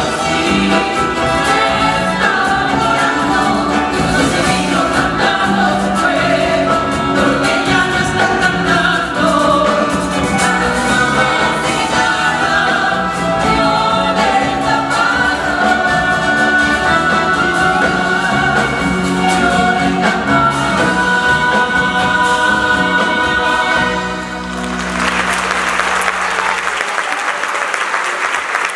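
Latin American folk music, with a group of voices singing over a band. About 24 seconds in the music ends and the audience applauds.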